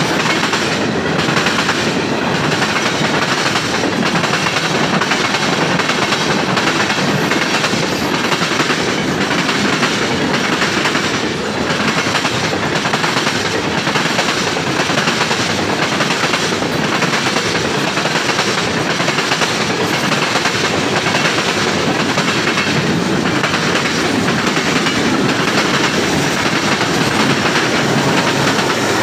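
CN freight train's tank cars and covered hoppers rolling past close by, a loud, steady rumble with the wheels clicking over the rail joints.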